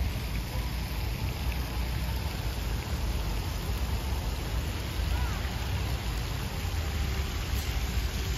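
Steady rushing of water running through a park's pool and water feature, mixed with the low rumble of city traffic.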